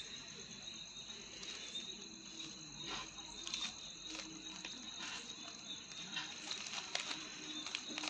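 Plastic 3x3 Rubik's cube being turned by hand: a scatter of short, faint clicks as the layers are twisted, over a steady high-pitched whine in the background.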